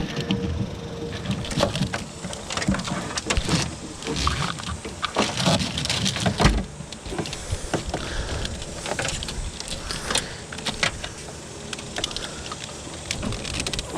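Irregular clicks, knocks and rustling of hands working on a truck's wiring, pulling and routing the wiring harness and handling its parts. The sharpest knock comes about six and a half seconds in.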